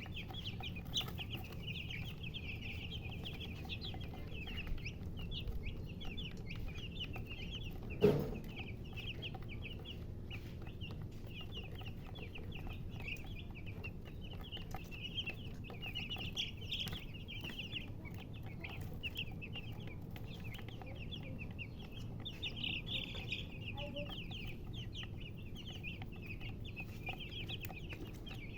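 A group of baby chicks peeping continuously, many short high chirps overlapping, over a low steady hum. About eight seconds in, a single louder, sudden sound stands out.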